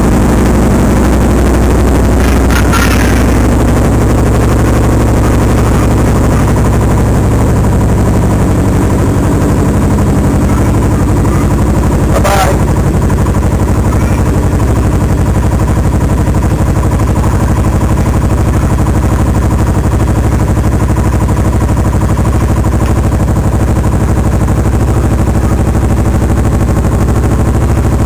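Kawasaki Versys 650's parallel-twin engine running just after a start, picked up close by a dash-mounted camera, with a rapid, even pulsing from the exhaust as it idles and then pulls away at low speed. A single sharp knock about twelve seconds in.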